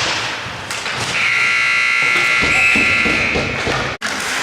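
Ice rink scoreboard buzzer sounding one steady, high tone for about three seconds, over rink crowd noise.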